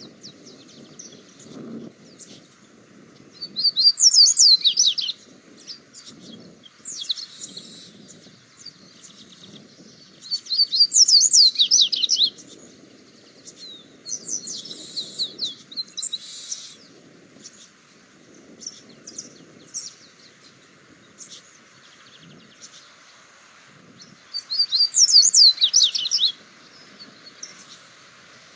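A songbird singing: three loud phrases, each a quick run of high downward-sweeping notes lasting about two seconds, with softer chirps and calls in between.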